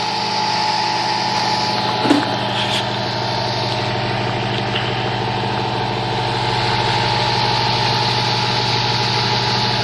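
Vintage Zero table fan running steadily: electric motor hum with the steady rush of the blades moving air, spinning freely now that oil has worked into its tight bearings. A brief knock about two seconds in.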